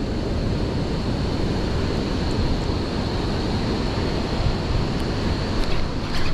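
Steady rushing of wind on the microphone mixed with moving river water, with a few faint clicks near the end.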